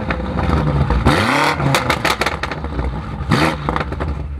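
BMW M8 Competition's twin-turbo V8 with an FI aftermarket exhaust, revved while standing still: several blips whose pitch rises and falls, with sharp pops and crackles from the exhaust.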